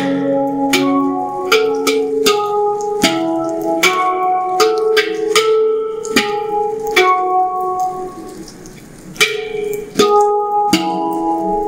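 Omana handpan played by hand: single notes struck one after another, a new note every second or so, each ringing on with its overtones, in an unhurried melody with a short pause about eight seconds in. Rain hisses steadily underneath.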